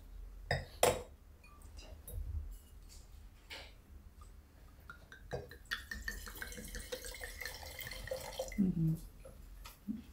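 Red wine poured from a bottle into a stemmed wine glass, a trickling, gurgling pour of a few seconds beginning just before the middle. Before it come a few light clinks of glass and tableware being handled.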